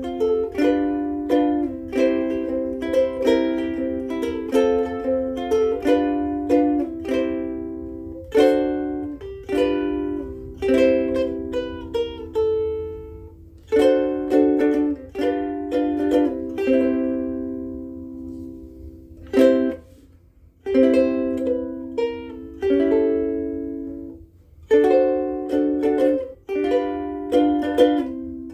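Martin S1K koa soprano ukulele with Martin M600 strings, played unaccompanied: strummed and plucked chords that ring and die away, with a few brief pauses between phrases.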